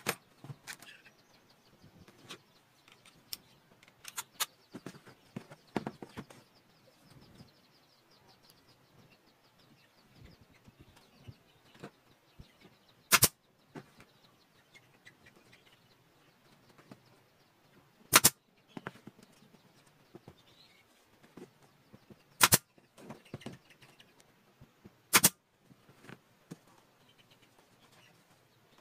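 Sharp knocks and clicks, four of them loud and several seconds apart in the second half, with lighter taps and handling noise between.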